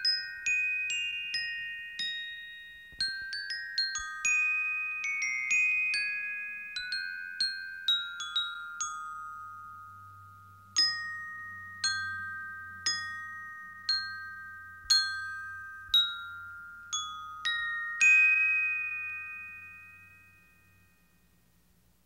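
Closing music: a slow melody of single bell-like notes on a glockenspiel-like mallet instrument, each struck note ringing and fading. It ends on a long final note that dies away.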